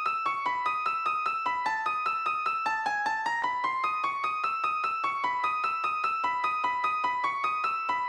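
Background music: a solo piano-like keyboard playing a quick, even run of single notes.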